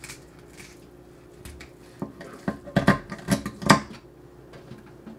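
Kitchen scissors snipping through a walleye's tail fin: a quick run of sharp snips and clicks about two to four seconds in. A faint steady hum runs underneath.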